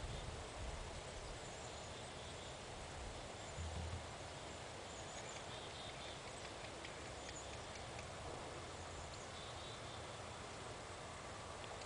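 Faint outdoor ambience with a horse stepping on soft arena footing: muffled hoof falls, with two low thumps about half a second and about four seconds in.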